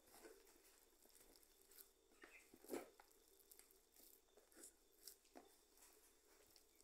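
Faint, irregular squishing and tearing of sticky, still-floury bread dough being kneaded by hand in a plastic bowl, with the loudest squelch a little under three seconds in.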